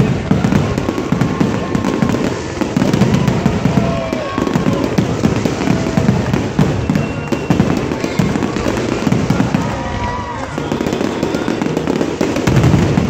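A dense barrage of aerial fireworks bursting, with many overlapping bangs and crackling and a deep continuous rumble. There are no gaps, and a burst of louder bangs comes near the end.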